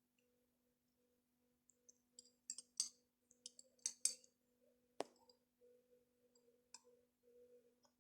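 Near silence over a low steady hum, with faint scattered clicks and crackles from a saucepan of lemon-and-honey syrup being heated to the boil; one sharper click about five seconds in.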